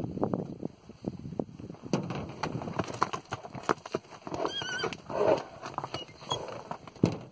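Two horses sparring: a short, shrill, wavering squeal about halfway through, followed by a lower cry, over repeated hoof stamps and knocks on stony ground, with one loud thud near the end.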